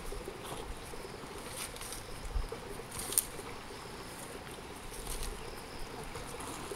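A pair of oxen pulling a wooden plough through loose tilled soil: soft, irregular footfalls and scraping, a few light knocks, and a faint steady high hum behind them.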